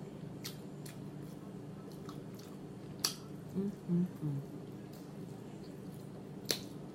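A person chewing and eating, with a few sharp, crisp clicks from the mouth and food and a few short hummed 'mm' sounds about halfway through, over a steady low hum.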